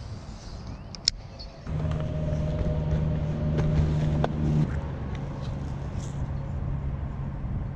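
A sharp click, then a steady motor hum that starts suddenly about two seconds in. About halfway through it drops a little in pitch and loudness and keeps running.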